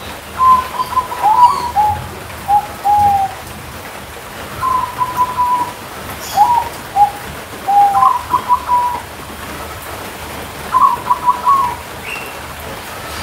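Caged zebra doves (perkutut) cooing in about six short phrases of a few notes each, calling back and forth, with steady rain in the background.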